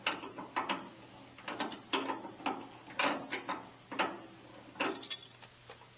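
Tongue-and-groove pliers clicking and scraping on the metal nut of a tractor key switch as it is tightened: an irregular string of sharp metallic clicks, about two a second, some in quick pairs.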